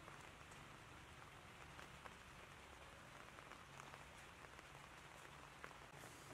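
Faint light rain falling on wet ground and a puddle, heard as a soft even hiss with scattered small drop ticks.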